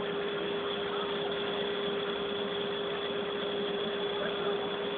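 A street sweeper's engine running steadily, an even noise with a constant hum and a faint high whine over it.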